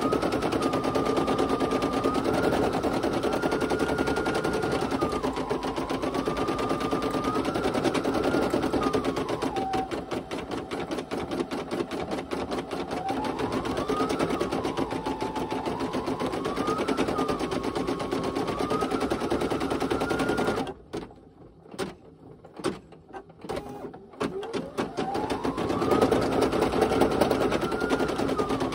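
Brother PE800 embroidery machine stitching a design: fast needle strokes under a motor whine that glides up and down in pitch as the hoop moves. About 21 seconds in it stops for roughly three seconds with a few clicks, then starts again with a rising whine.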